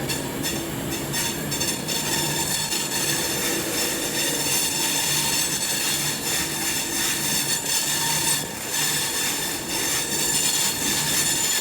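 Avanti West Coast Class 390 Pendolino electric train at the platform, giving a steady many-toned electrical whine with rail and wheel noise under it.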